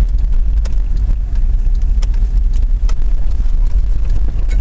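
Vehicle being driven, heard from inside the cab: a steady low engine and road rumble with scattered knocks and rattles.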